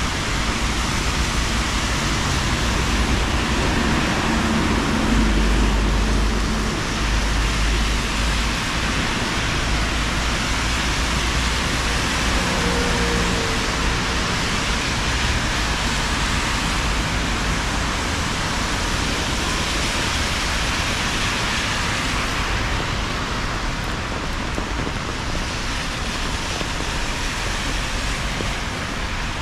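Steady hiss of rain falling on pavement and wet road, mixed with car tyres swishing on the wet street. A deeper rumble from a passing vehicle swells about five seconds in and fades by eight.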